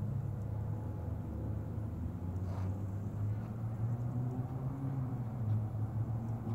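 A low, steady rumble with a wavering hum, and a brief faint scrape about two and a half seconds in.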